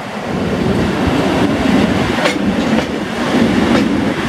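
EP07 electric locomotive and its passenger coaches rolling past, with a steady rumble and a few sharp clacks as the wheels cross rail joints.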